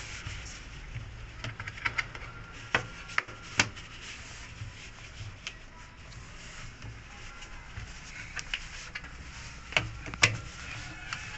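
Irregular sharp clicks and taps with light rubbing and scraping in between, as of hand tools and parts being handled during washing-machine repair work.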